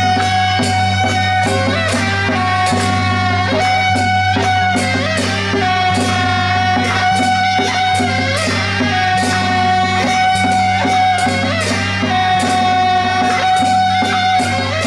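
Procession band music: a brass horn plays a melody with long held notes over regular drum beats from a drum cart, about two to three strokes a second, with a steady low hum underneath.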